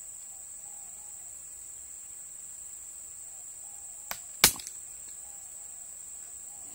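A single sharp crack from a Sharp Tiger pump air rifle fired from the shoulder, coming a moment after a light click, about two-thirds of the way in. Under it runs a steady high-pitched drone of insects.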